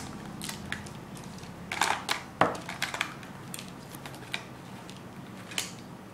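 Beyblade parts and plastic packaging being handled and moved aside: scattered crinkling and light plastic clicks, with a sharper click about two and a half seconds in.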